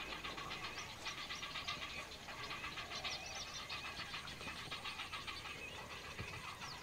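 Faint chirping of birds, many short calls and quick whistled glides, over a steady faint background.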